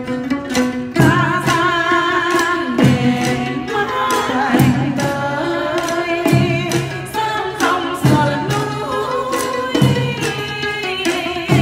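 Chầu văn (Vietnamese ritual hát văn) singing: a voice sings a wavering line with vibrato, accompanied by a plucked đàn nguyệt (moon lute) and a steady beat of sticks on small drums and wooden clappers.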